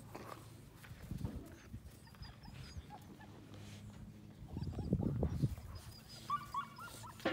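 Two North American Mastiff puppies wrestling in play, with low, rough growling that comes in bursts about a second in and is loudest around five seconds in.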